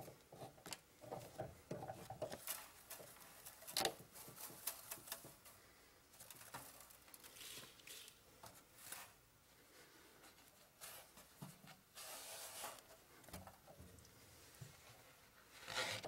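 Faint rustling and clinking of metal chips and tools handled by hand around a stopped mini-lathe: many small clicks, one sharper click about four seconds in, and longer rustles about twelve seconds in and again at the end.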